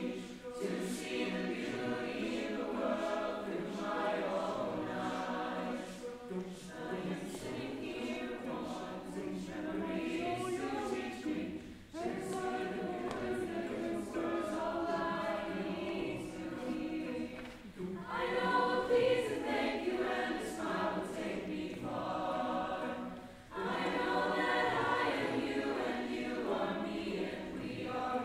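A choir singing, in phrases with short pauses between them.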